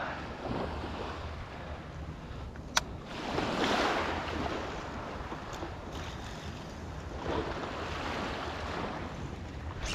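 Ocean surf washing onto the beach, swelling as a wave comes in about four seconds in, with one sharp click a little before it.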